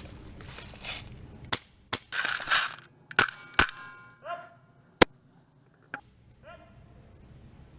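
A handful of sharp single snaps of airsoft guns firing, irregularly spaced over several seconds, with a short rushing burst about two seconds in.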